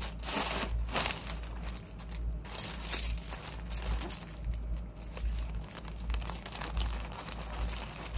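Plastic poly mailer and the clear poly bag around a shirt crinkling in irregular bursts as the bagged shirt is pushed into the mailer and the mailer is folded and pressed shut by hand, over a steady low hum.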